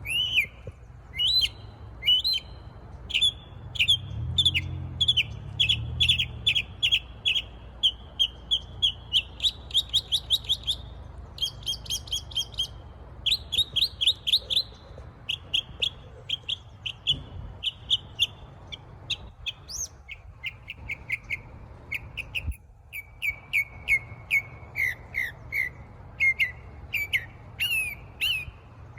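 A songbird singing a long, unbroken song of rapid repeated chirps and trills, changing phrase every second or two.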